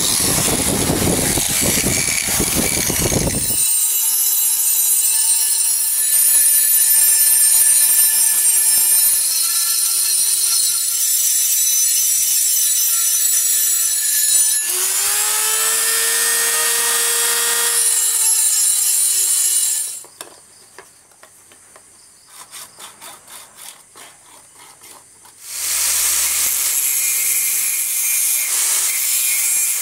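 An angle grinder grinds hard leaf-spring steel for about three seconds. Then a high-speed rotary tool whines as it engraves the blade, its pitch rising and falling. Near the end comes a short run of quiet hand hacksaw strokes cutting antler, and then an angle grinder starts up again on the antler.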